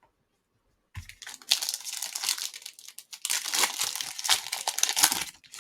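A trading-card pack wrapper crinkling as it is handled and torn open, starting about a second in, in two long bouts with a short break in the middle.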